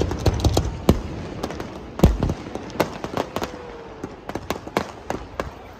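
Aerial fireworks going off: a rapid, irregular string of sharp bangs and pops, with one heavier, deeper boom about two seconds in.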